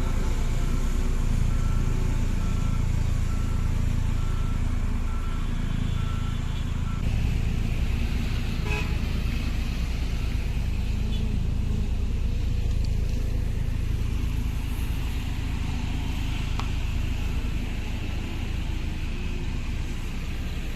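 Road roller's engine running steadily with a heavy, fast-pulsing low rumble from the machine and its vibrating drum. For the first seven seconds a beeping alarm repeats about once a second.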